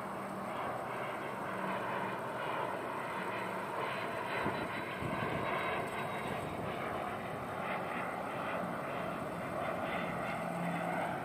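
Learjet twin turbofan jet on landing approach: a steady, fairly faint jet rush with a thin high engine whine.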